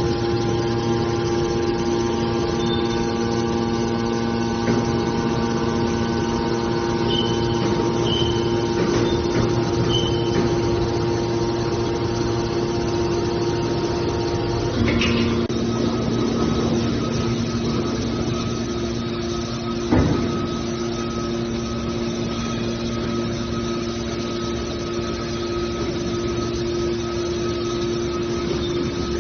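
The motor and hydraulic pump of a hydraulic metal shear baler running with a steady hum. The tone shifts about halfway through, and there is a single knock about two-thirds of the way in.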